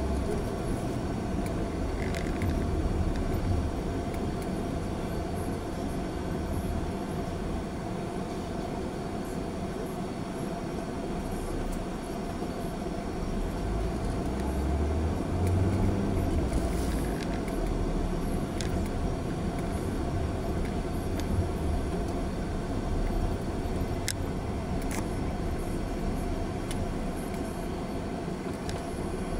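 Car cabin noise while driving slowly in town traffic: the engine running and tyres on the road, a steady low rumble with a constant hum. The rumble swells about halfway through, and a couple of sharp clicks come later on.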